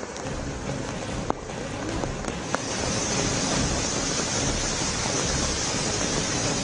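Steady rushing hiss of heavy rain and water on a flooded street, growing louder over the first few seconds, with a few faint clicks.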